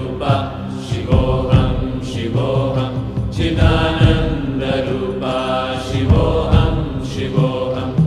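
Voices chanting a Sanskrit devotional chant to instrumental accompaniment, with low drum-like beats under the sung syllables.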